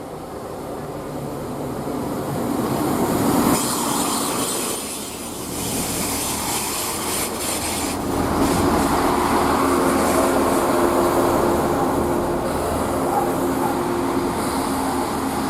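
A train passing close by on the railway: a rushing sound of wheels on rail that builds over the first few seconds and then holds, with a steady hum setting in about halfway through.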